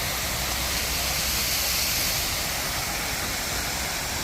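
Steady rushing of falling water, swelling slightly about two seconds in.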